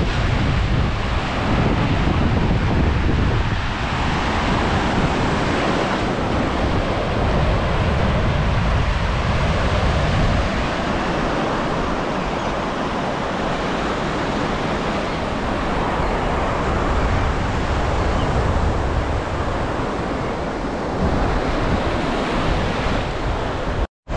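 Ocean surf washing on a beach, with steady wind buffeting the microphone and a heavy low rumble.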